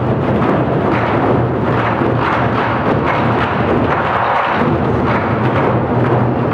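Ensemble of Korean drums, buk barrel drums and large daebuk, beaten together in dense, continuous drumming.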